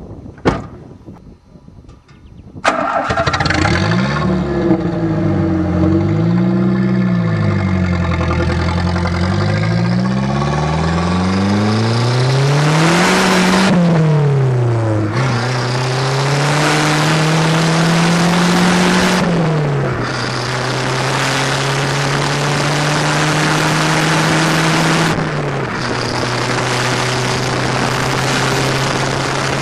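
Car exhaust heard from right under the rear of the car: a single thump just after the start, then the engine pulls away about three seconds in, its pitch rising and falling several times before climbing steadily through the gears, with sudden drops at gear changes about 19 and 25 seconds in. Road and wind noise runs underneath.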